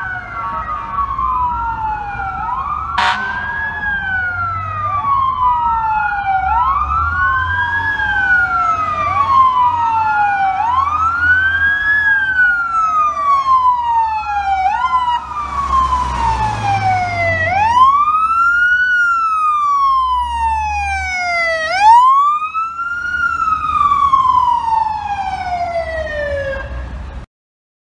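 Wail sirens on fire apparatus responding, pitch rising and falling over and over, over the low rumble of the trucks' engines. For the first half two sirens sweep out of step with each other. Then one siren sweeps more slowly, with a quick drop and restart about two thirds of the way through.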